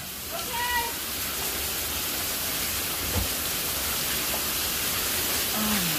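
Water gushing from a burst pipe: a steady, even rushing hiss with no letup.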